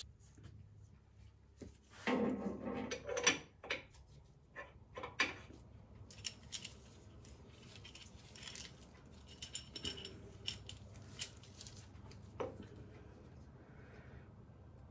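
Light metallic clinks and jangles of a heavy single-row timing chain and its steel sprockets being handled and fitted onto the cam and crank snouts of a small-block V8. There is a louder handling noise about two seconds in, followed by scattered small clicks.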